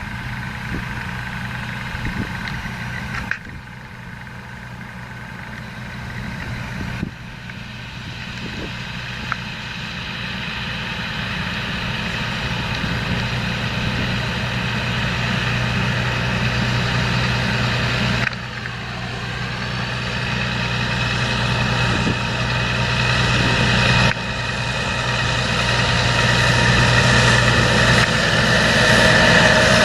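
John Deere 7230R tractor's six-cylinder diesel engine running steadily under load while pulling a seed drill, growing louder as it comes closer. The sound drops back suddenly several times and builds up again.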